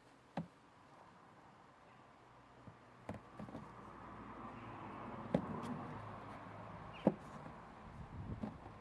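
Potatoes being dropped into a crate: a few short, light knocks spaced a second or more apart, over faint background noise that swells and fades midway.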